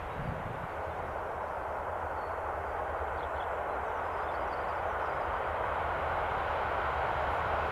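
Electric locomotive hauling a freight train of car-carrier wagons approaching along the line: a steady rolling noise of wheels on rails that grows slowly louder as the train draws near.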